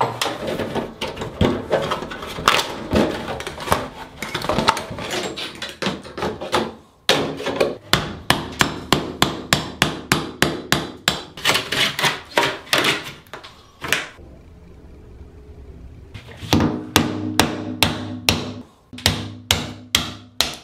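A hammer striking a chisel to knock old ceramic wall tiles off the wall above a bathtub. The blows come quick and repeated, about three a second, stop for a couple of seconds about two-thirds of the way through, then start again.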